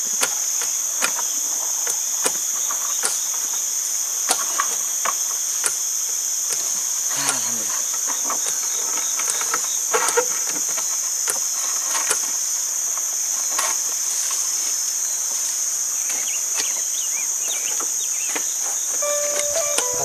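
Steady high-pitched drone of an insect chorus from the riverside forest, with scattered sharp knocks and clicks from handling gear in a wooden boat. Music comes in just before the end.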